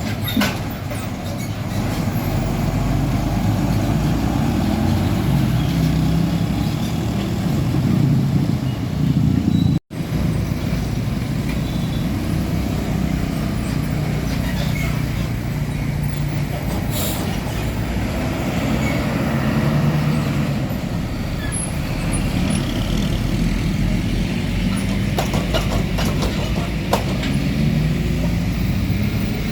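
Heavy diesel trucks running on the road: a steady low engine rumble with tyre and traffic noise, broken once about ten seconds in by a sudden cut.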